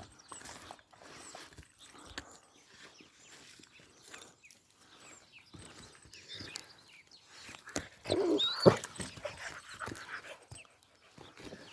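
Hunting dogs making short excited noises, with whines and yelps; the loudest stretch comes about eight seconds in, with a brief high cry.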